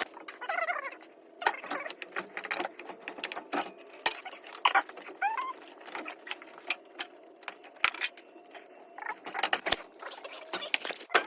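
Irregular clicks, clinks and knocks of hand tools on metal during work on a car engine bay, with a few brief, faint voice fragments.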